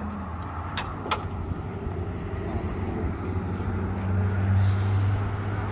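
Two sharp metallic clicks about a second in as the Ford F-150's hood latch is released and the hood lifted, over a steady low hum of a nearby motor vehicle that swells near the end.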